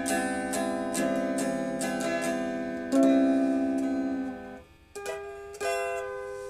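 Instrumental music on a plucked string instrument: notes struck about every half second that ring on and fade, with a short break about three-quarters of the way through before the playing resumes.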